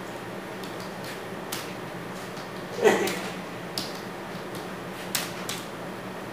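Scattered keystrokes on a computer keyboard, single clicks roughly a second apart over a steady room hiss, with a louder short sound that falls in pitch about three seconds in.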